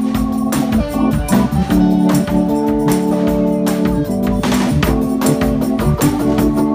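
Live rock band playing an instrumental passage: long held chords on a Yamaha electric keyboard in an organ-like voice, over a drum kit with steady cymbal strikes.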